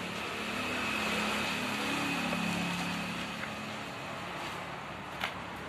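Busy wholesale market ambience: a steady hubbub of indistinct background noise with faint voices, and a single sharp click about five seconds in.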